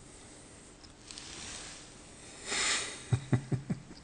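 Hands handling small metal parts of a lathe tailstock: a short breath-like rush of noise, then a quick run of about five small knocks and clicks near the end.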